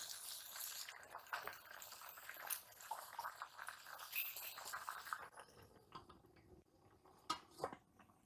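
Malabar spinach (pui shak) leaves sizzling and rustling in a hot metal wok over a wood fire as a wooden spatula turns them, with small crackles. About five seconds in it drops to faint scattered crackles, and near the end a couple of sharp metal knocks as the lid goes onto the wok.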